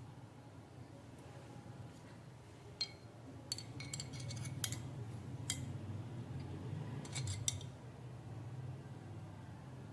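Light metallic clicks and clinks of steel garden shear parts being handled, in clusters about three to five seconds in and again about seven seconds in, over a faint low hum.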